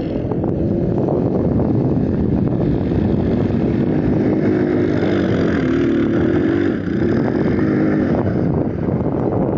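ATV engine running hard under throttle, its pitch and level dipping briefly about two thirds of the way through before picking up again.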